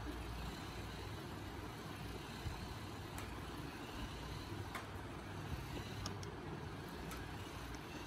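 Toy remote-control car running across the floor: a low steady rumble with scattered light clicks.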